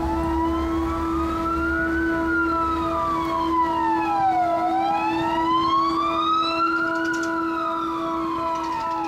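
A siren wailing slowly, its pitch rising for about two and a half seconds and then falling, nearly two full cycles, over a few steady held tones.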